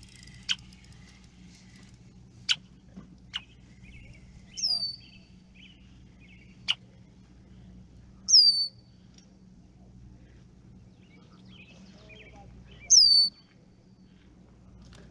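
A bird calling: three loud, short notes sweeping down in pitch, about four seconds apart. Sharp single chip notes and softer twittering come in between.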